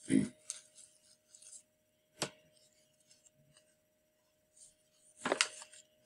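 Desk handling noises: a rustle near the start, a sharp click a little past two seconds in and a louder knock and rustle near the end, over a faint steady whine.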